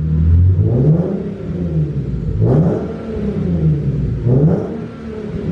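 2010 Nissan 370Z's 3.7-litre V6 revved three times in quick blips, the pitch rising and falling back toward idle each time.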